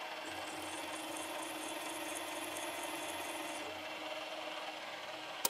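Drill running as a twist drill bit cuts slowly into a crankshaft counterweight, taking a few grams of metal off to correct the crank's imbalance. A light regular chatter in the first few seconds eases off near the end, and a short click closes it.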